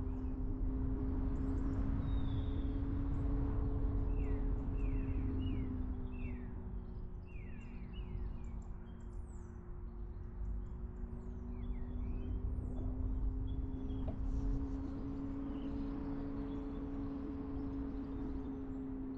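Car driving: a steady low rumble of road and wind noise under the engine's hum, which drops in pitch about a third of the way in and climbs back later. Birds chirp outside, with a run of short falling chirps in the first half.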